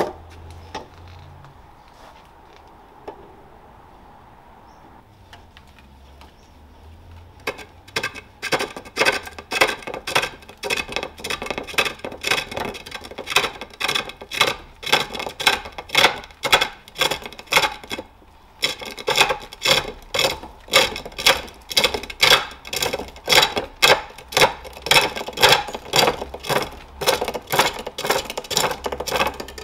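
A hand-forged hook tool cutting a jacaranda bowl blank on a treadle-driven spring pole lathe. After a few quiet seconds the cuts come in a steady rhythm, about two a second, one with each treadle stroke as the bowl spins one way. There is a short pause about two-thirds of the way through.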